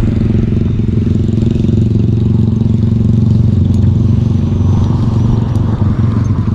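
A motor vehicle engine running with a steady low hum, holding the same pitch throughout.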